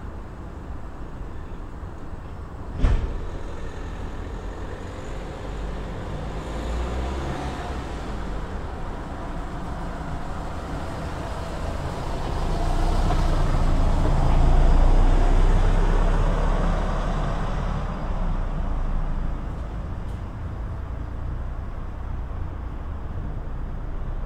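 City road traffic rumbling steadily, with one vehicle passing closer about halfway through, growing louder and then fading away. A single sharp knock sounds about three seconds in.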